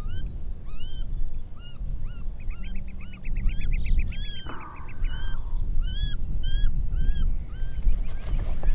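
Animal calls: a regular series of short calls, each rising then falling in pitch, about two a second, with a quick run of higher, faster chirps and a brief downward sweep in the middle, over a steady low rumble.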